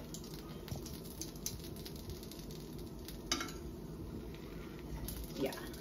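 Taquitos shallow-frying in a skillet: a steady, quiet sizzle with scattered small crackles and pops. There is one sharper tap a little over three seconds in.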